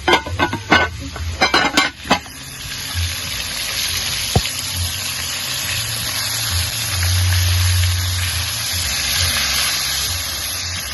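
A few quick metallic knocks and clatters of a spoon against a cooking pot in the first two seconds, then a steady sizzling hiss from food cooking in the pot, with a low hum underneath.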